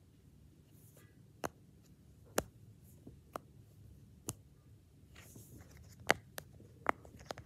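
Silicone pop-it fidget toy, its bubbles popping one at a time under fingertips: about eight sharp single pops, roughly a second apart at first and coming quicker near the end.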